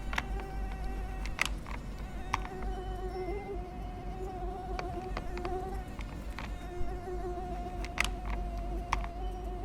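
Flying insect buzzing: one steady, slightly wavering drone, with a few sharp clicks scattered through it.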